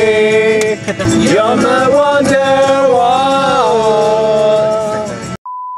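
Song with a male singer and instrumental backing playing, cut off abruptly about five seconds in by a steady high-pitched beep tone.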